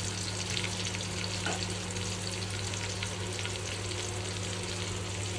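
Tomato and garlic masala with red chilli powder sizzling in ghee in a pan as it is stirred, a steady frying hiss.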